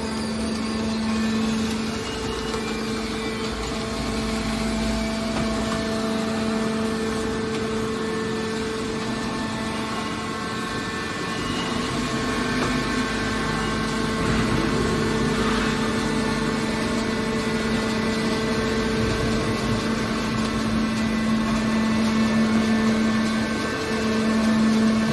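Hydraulic scrap-metal baler's power unit, an electric motor driving a hydraulic pump, running with a steady hum and whine.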